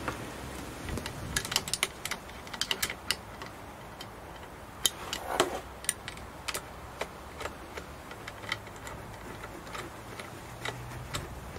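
Irregular metallic clicks, clinks and a short scrape of hand tools and parts being handled while a throttle body is taken off a diesel intake manifold.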